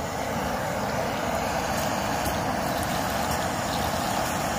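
Gas One canister backpacking stove burning with its valve turned wide open: a steady, even hiss of the gas flame.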